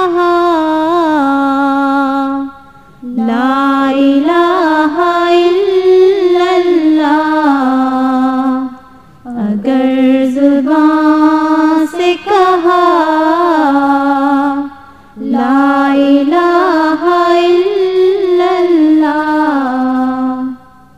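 A solo voice singing an Urdu devotional nazm in long, ornamented phrases, about four in all, each held for several seconds and separated by brief breaths.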